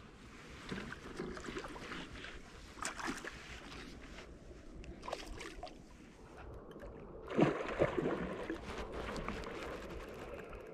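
Irregular splashing and sloshing of water with scattered rustles and knocks. The loudest burst comes about seven and a half seconds in.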